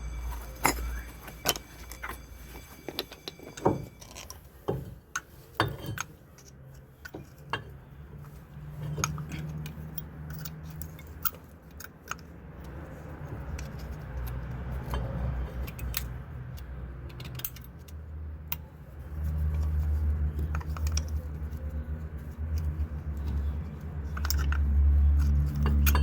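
Metal clinks, clicks and knocks of hand tools and brake parts being handled while the brake assembly is taken apart, thickest in the first several seconds. A low steady rumble swells up in the second half and is loudest near the end.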